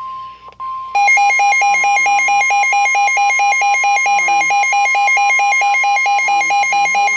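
Emergency Alert System attention tones: a steady tone near 1 kHz, joined about a second in by a loud, harsh alarm beeping about four times a second.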